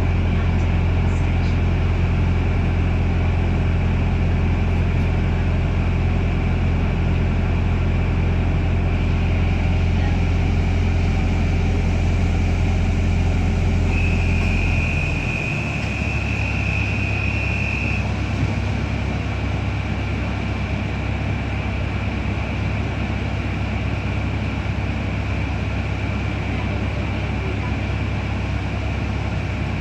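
Interior of a New Routemaster hybrid double-decker bus from the upper deck: the diesel engine's steady low drone, which shifts to a different note and eases slightly about halfway through. Around the middle, a steady high whistling tone sounds for about four seconds.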